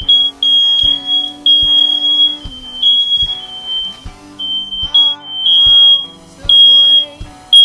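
Smoke alarm beeping again and again, long high-pitched beeps about a second apart, from a faulty alarm that will not stop despite fresh batteries and resets. The beeps are mixed over music with a steady beat.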